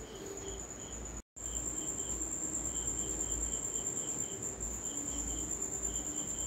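Crickets chirping: a steady high trill with a repeating pulsed chirp underneath. The sound drops out briefly a little over a second in.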